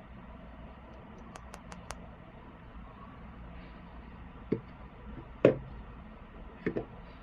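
A quick run of four light clicks, then a few sharper knocks spread over the second half, the loudest about halfway through, from small toy figures and packaging being handled. A steady low hum sits underneath.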